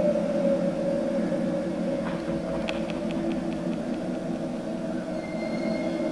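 Sustained low droning tones of the dance's accompanying music, with a short run of light ticks, about seven a second, around the middle.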